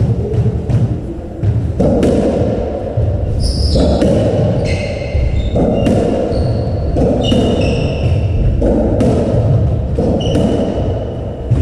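Racketball rally on a squash court: the ball bounced before the serve, then a racket strike or the ball hitting a wall every second or two, each echoing in the court. Players' shoes squeak briefly on the wooden floor several times.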